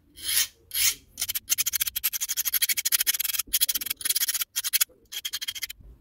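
A Victorinox pocketknife's metal file rasping along a steel knife blade in runs of short, quick strokes with brief pauses. It is taking the burrs off a badly dulled edge and truing it before the blade goes to a sharpening stone.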